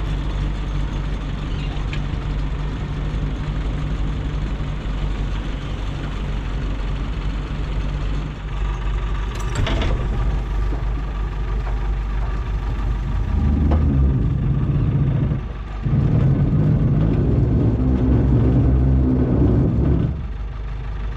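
A vehicle engine running steadily, growing louder about two-thirds of the way in, dipping briefly, then easing off near the end. A single sharp clack about halfway through.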